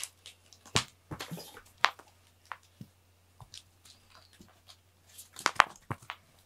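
Cats moving and playing among toys on a foam floor mat: scattered sharp taps and clicks with light rustling. The loudest taps come about a second in, at about two seconds, and in a quick cluster near the end.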